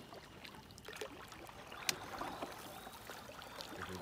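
Wooden canoe paddle strokes in calm water: the blade dips and pulls with soft splashing and water dripping off it, and one sharp knock about two seconds in.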